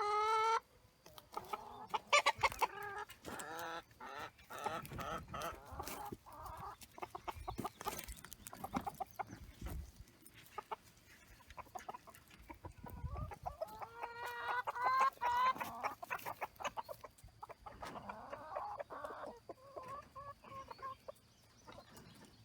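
Chickens clucking and calling in a coop, several birds at once, with short squawks and louder bursts of calls around two seconds in and again around fourteen to sixteen seconds in.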